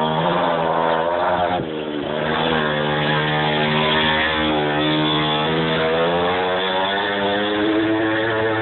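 Small motorcycle's engine running as it is ridden, its pitch rising and falling with the throttle. The pitch dips briefly about two seconds in, then climbs again.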